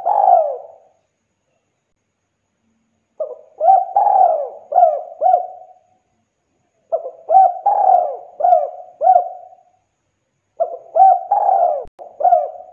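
Spotted dove cooing. The end of one phrase comes at the start, then three phrases follow about three and a half seconds apart, each a run of four or five short coos rising and falling in pitch, with silence between phrases.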